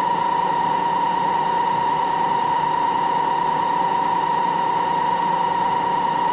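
Moore jig borer running with its spindle turning, a steady machine drone with a prominent high whine that holds one pitch throughout.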